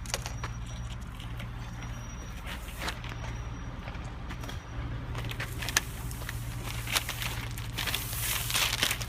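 A motor engine running steadily in the background, a low even hum, with scattered knocks and rustling from cable being handled, and a short burst of rustling near the end.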